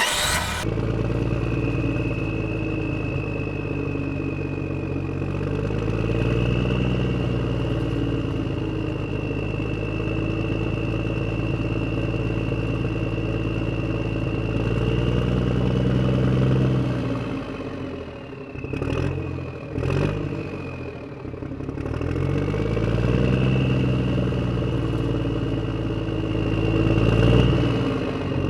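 A motor running steadily with a high whine, its pitch rising and falling several times as it speeds up and slows down; about two-thirds of the way through it briefly drops away and picks up again.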